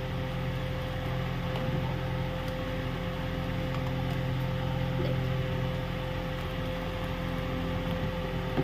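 A small motor's steady hum, even and unchanging, with a faint tick about five seconds in.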